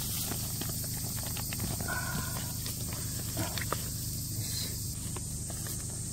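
Plastic greenhouse film crinkling and rustling as gloved hands pull and tuck it, with scattered light clicks, over a steady high hiss.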